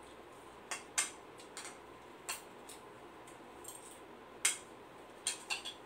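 Spoon clinking against a bowl while eating: several light, sharp clinks spread irregularly, two of them louder, about a second in and near the end.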